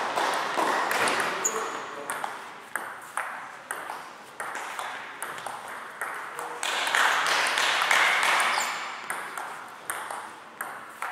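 Table tennis rally: a celluloid ball clicking sharply off rubber bats and the table, back and forth at short, uneven gaps. Two swells of voices rise over it, one near the start and a louder one about seven seconds in.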